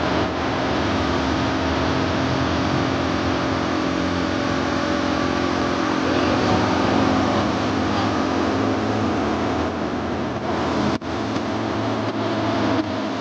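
Propeller engines of two MX2 aerobatic aircraft in a formation pass, a steady drone with a slight shift in pitch. The sound drops out for an instant near the end.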